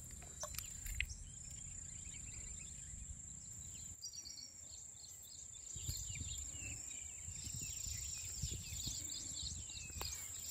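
Insects trilling in a steady, high-pitched drone, with scattered bird chirps and a few faint clicks.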